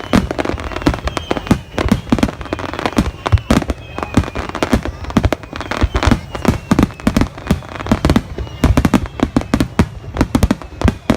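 Fireworks bursting in quick succession, many sharp booms and cracks overlapping throughout.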